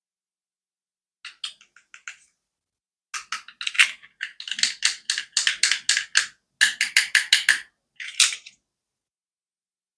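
Toy clicking in quick, sharp clicks. A few clicks come about a second in, then a fast run of around five or six clicks a second lasting about four seconds, and a last short click near the end.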